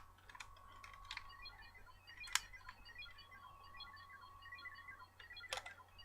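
Power Rangers morpher toy playing a faint electronic sound effect through its small speaker: a steady tone with rapid short high beeps over it, broken by a couple of sharp clicks, about two and a half and five and a half seconds in.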